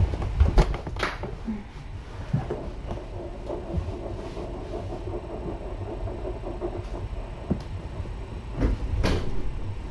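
A few sharp knocks and clatters, like a cupboard or door being handled, then a steady low rumble, with more knocks near the end.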